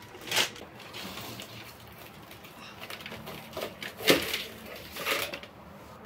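Crinkly rustling of a plastic potting-soil bag as soil is tipped into a plastic plant pot, with three louder crackles about half a second in, near four seconds and near five seconds.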